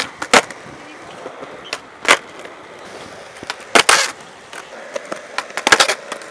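Skateboard wheels rolling on concrete, broken by several sharp clacks of the board popping and landing during flatground flip tricks. Some of the hits come in quick pairs or clusters.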